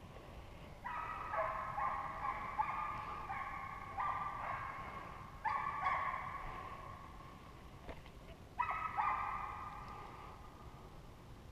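A pack of deer hounds baying on a chase, several dogs' long calls overlapping in two bouts, the second starting a little past the middle.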